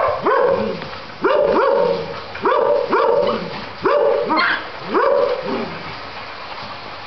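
A young dog barking in play: a run of about seven barks, roughly one a second, each rising quickly in pitch and then holding. The barks stop a second or two before the end.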